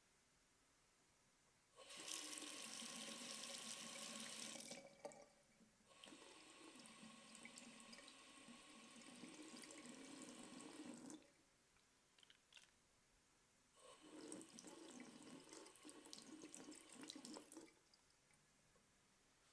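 Tap water running into a sink in three separate bursts, each a few seconds long, as the electric toothbrush is rinsed clean.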